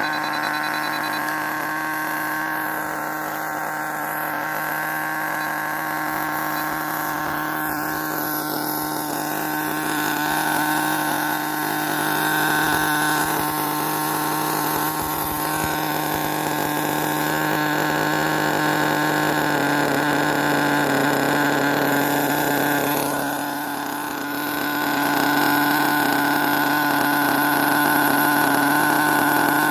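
Electric RC car running: a steady whine from the motor and geartrain, easing off briefly about two-thirds of the way through and then picking up again.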